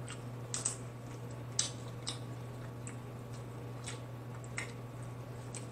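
Dungeness crab shell being picked apart by hand: irregular small cracks and clicks of the soft shell, with faint wet squishes of the meat, over a steady low hum.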